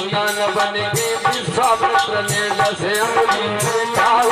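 Hindi devotional bhajan: a male voice singing over a harmonium, with steady beating percussion and a shaker-like rattle.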